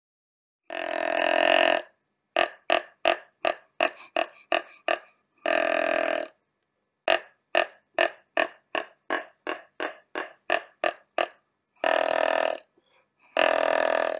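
White-tailed deer calling: four drawn-out calls of about a second each, and between them two runs of short grunts at about three a second.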